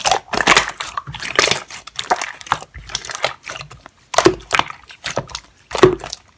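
Slime being pressed and squished by hand, giving irregular crackling and popping clicks.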